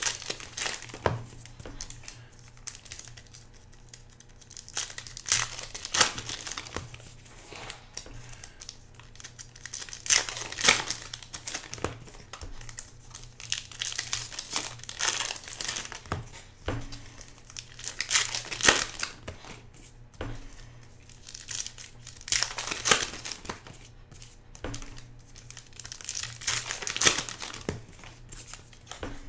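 Trading-card pack wrappers (Topps Star Wars Journey to The Last Jedi hobby packs) being torn open and crinkled by hand, in loud bursts every few seconds.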